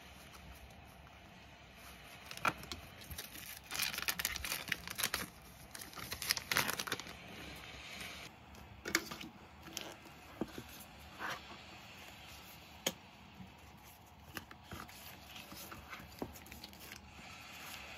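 Paper sticker sheets and a clear plastic binder sleeve rustling and crinkling as they are handled. Dense crinkly rustles fill the first seven seconds or so, then scattered light clicks and rustles.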